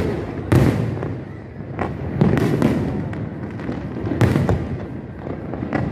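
Aerial fireworks shells bursting one after another: a string of sharp bangs, the heaviest about half a second, two and a quarter and four seconds in, over a continuous low rumble.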